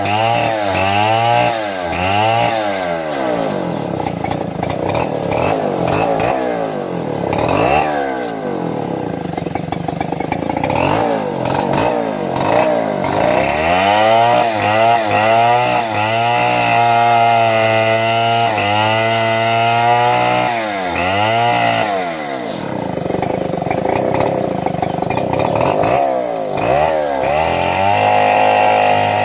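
Chainsaw running, its engine revving up and dropping back over and over, with a long stretch held at high revs in the middle.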